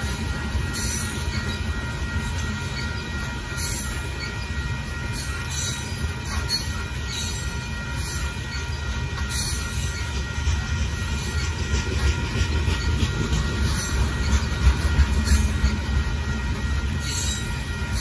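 Loaded limestone hopper cars of a freight train rolling steadily past: a continuous low rumble of wheels on rail, with a thin, steady, high-pitched wheel squeal over it and occasional light clicks.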